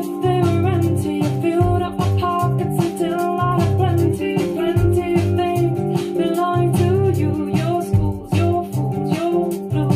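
Recorded song playing over a hi-fi stereo system: a singing voice over guitar and a bass line.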